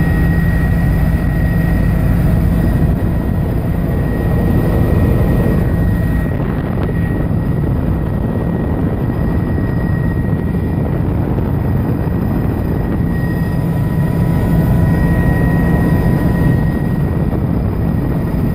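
Helicopter in flight heard from inside the cabin: a loud, steady drone with a thin high whine over it.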